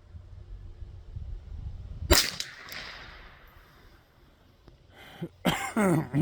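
A single .22 LR shot from a Marlin Model 795 semi-automatic rifle about two seconds in: a sharp crack with a short echoing tail. Wind rumbles on the microphone throughout.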